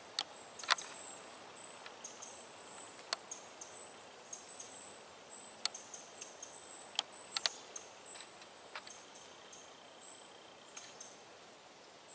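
Scattered sharp clicks and crackles of a small blacktail deer's steps on dry leaves and twigs, over a faint, high, thin chirping that keeps breaking off and starting again.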